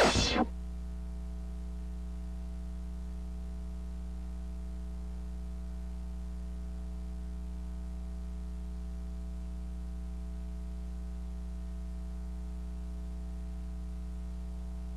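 Loud music cuts off about half a second in, leaving a steady electrical mains hum with a faint hiss underneath.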